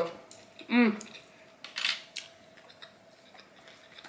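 Small clicks and taps of chopsticks and a food tray being handled at a table, with a short vocal hum about a second in and a breathy sound near two seconds.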